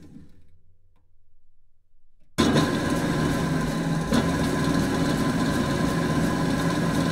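Large drill press running down to a faint low hum, then starting again abruptly about two and a half seconds in and running steadily, with a short click about four seconds in.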